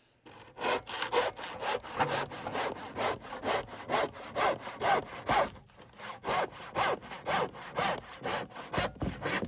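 Handsaw crosscutting the crooked end off a ponderosa pine board in quick back-and-forth strokes, about three a second, with a couple of brief pauses.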